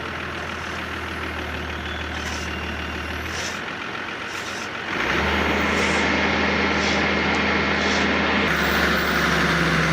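Excavator diesel engine running steadily. It dips briefly about three and a half seconds in, then comes up louder about five seconds in with a steady whine, as the engine takes load.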